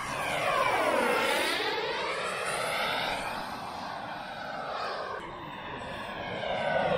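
Small gas-turbine engine of a radio-controlled jet whining as the model flies low past. Its pitch slides steeply down about a second in, then climbs again, and a second pass swells near the end.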